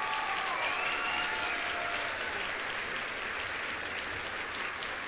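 Crowd applause, a dense patter of many hands clapping, with a few raised cheering voices in the first couple of seconds.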